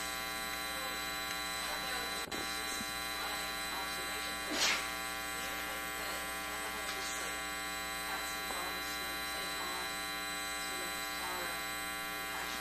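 Loud, steady electrical mains hum with a buzzing stack of overtones, cutting in abruptly. A woman's voice asking a question is faintly audible beneath it.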